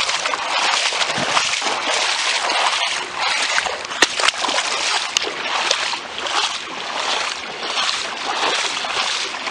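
A person wading through floodwater on foot, the water splashing and sloshing around the legs with each stride.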